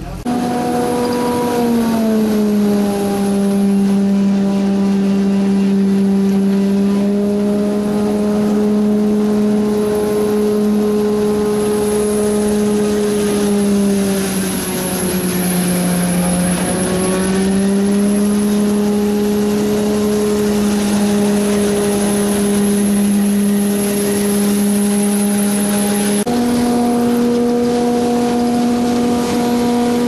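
Pik Rite 290 self-propelled tomato harvester running under load: a loud, steady engine and machinery hum with a faint high whine above it. The hum's pitch drops a little about two seconds in, sags further around the middle, then steps back up suddenly near the end.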